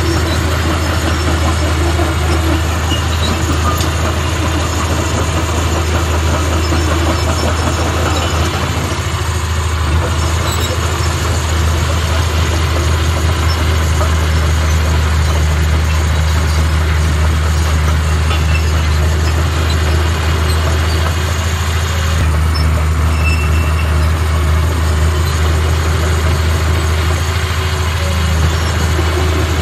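Komatsu D31P bulldozer's diesel engine running steadily under load as the blade pushes dirt, a constant low drone heard close up from the operator's seat.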